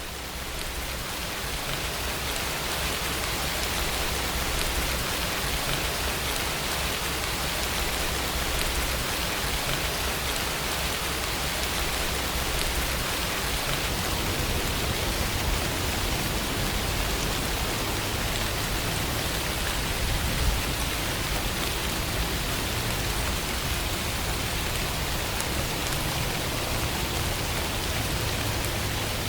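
Steady rain falling, a dense even hiss of drops on a surface, fading in over the first couple of seconds.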